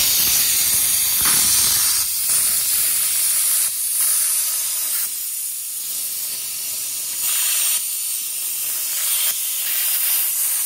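Wire-feed welder arc crackling and hissing as a steel plate is welded onto a truck frame, in a few runs of a second or two each.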